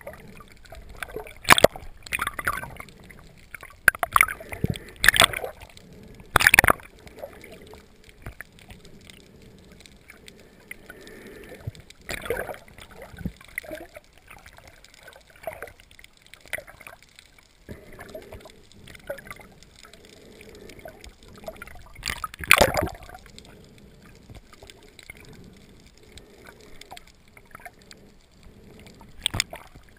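Underwater water noise through a GoPro's waterproof housing: a muffled low rush broken by irregular sharp knocks and short rushing bursts, several in the first seven seconds and one loud one about 22 seconds in.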